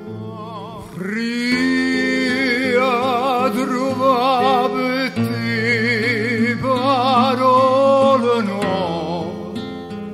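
Song: a singer slides up into one long, wavering held note about a second in and lets it fall away near the end, over guitar accompaniment.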